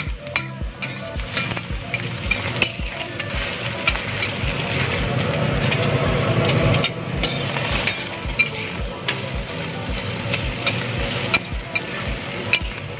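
Eggs frying on a flat steel griddle, sizzling steadily, while a steel spatula scrapes and clicks against the griddle surface.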